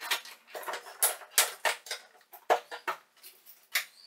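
Hands scratching and picking at the top of a plywood shipping crate while working to open it: a quick, irregular run of short scratches and clicks.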